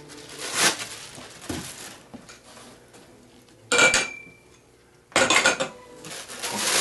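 Rustling of plastic wrap around a chrome drum-rack leg, then the metal tube clinks against other metal hardware about four seconds in, with a brief ring. Near the end, loud rustling of packing material as hands dig into a cardboard box.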